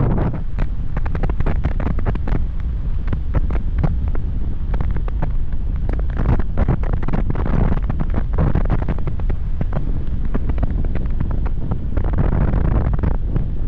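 Airflow buffeting the microphone of a 360 camera on a paraglider in flight: a steady low wind noise broken by frequent short, irregular crackles.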